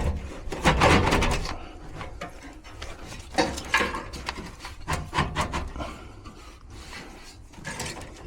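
Furnace blower assembly being worked out of its cabinet, scraping, rubbing and knocking against the sheet metal in irregular bursts, with the longest, loudest scrape about a second in. It is a tight fit that only barely clears.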